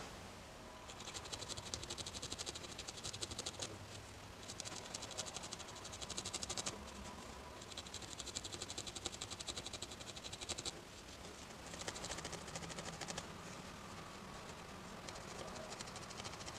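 Reverse felting needle jabbing rapidly into a wool piece and pulling fibres up into spikes: a faint, fast scratchy rasp in spells of one to three seconds with short pauses between.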